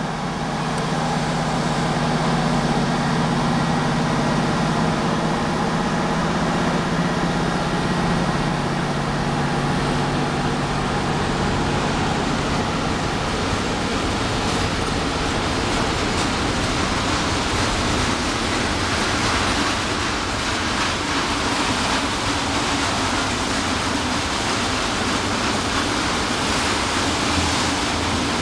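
CFR Marfa electric locomotive running past with a steady low hum, which fades about twelve seconds in. After that comes the steady rolling noise of a long train of tank wagons going by on the rails.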